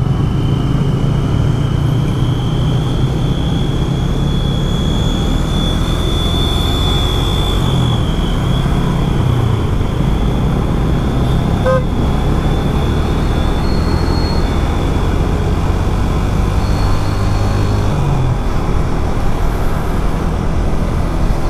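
Motorcycle engine running under way in traffic, heard with wind and road noise from a body-mounted action camera; the engine note shifts a few times with throttle and gear. A thin high whine sits above it, and there is a single click about twelve seconds in.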